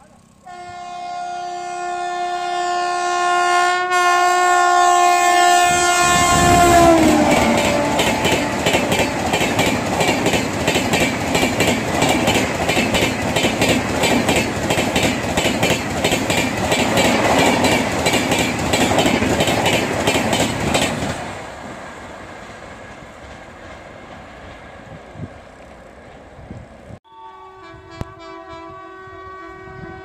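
An Indian Railways express train's horn sounds long and loud as the train approaches, its chord dropping in pitch as the locomotive passes about seven seconds in. Then comes a loud rush and fast rhythmic clickety-clack of LHB coach wheels over the rail joints as the train speeds through. It fades about 21 seconds in. Near the end a second train's horn starts.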